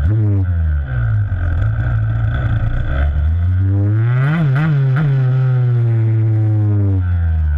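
Freestyle motocross dirt bike engine, heard close from a camera mounted on the bike. The revs drop sharply at the start, hold steady, are blipped up three times about four to five seconds in, then ease back down.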